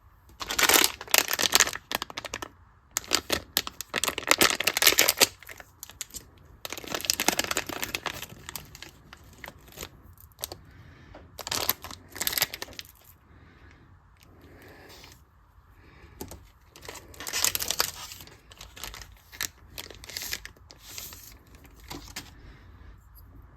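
Irregular bursts of crinkling and tearing, as of packaging being handled and torn open.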